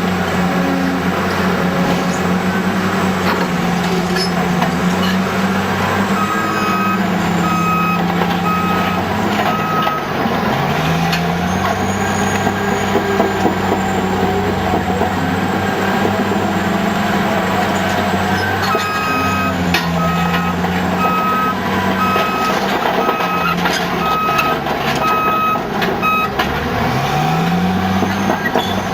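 Caterpillar D10T crawler dozer's diesel engine running under load. Its note dips and climbs back twice, as the machine works the slag. A reversing alarm beeps steadily during two stretches of several seconds each, as the dozer backs up.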